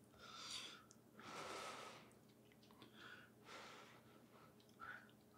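Near silence, with a few faint, soft breaths from a person eating.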